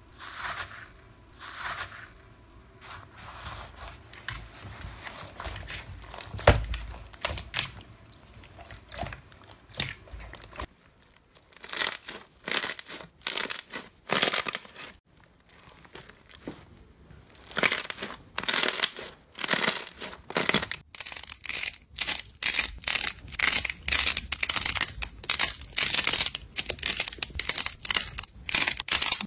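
Slime being squeezed and poked by hand, giving a string of short crackles and pops. About halfway through they come thicker and faster, in a fairly even rhythm.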